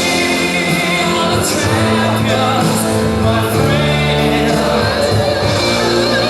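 Loud music with a sung vocal line, playing steadily.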